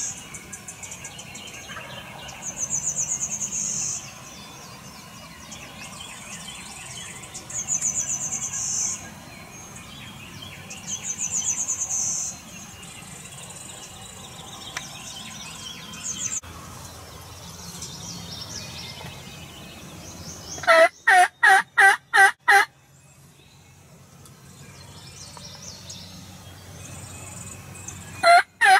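Dawn birdsong, with a songbird repeating a high, fast trill every few seconds. About 21 seconds in a turkey calls loudly in a run of about seven evenly spaced yelps, and another run of yelps begins near the end.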